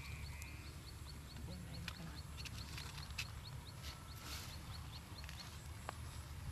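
Open-field ambience: a high, short chirp repeating evenly about four times a second over a low wind rumble, with scattered light rustles and clicks.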